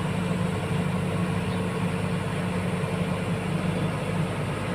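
Heavy diesel engine running steadily at a constant speed with a low hum.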